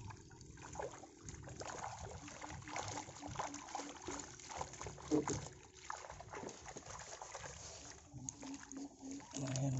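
Small fish splashing and flapping in the pocket of a lift net as it is raised from the water, with irregular spattering and trickling of water running off the mesh.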